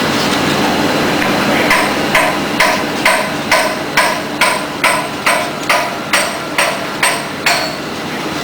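A hammer striking a metal part of a pellet mill about fourteen times in an even rhythm, a little over two blows a second, each blow ringing briefly, over a steady machine hum. The blows start a couple of seconds in and stop shortly before the end.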